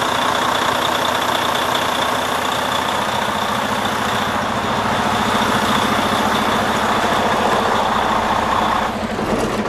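Replacement Detroit DD15 inline-six diesel in a Freightliner Cascadia idling steadily, with a steady high whine over the engine note. The engine runs smoothly after the swap.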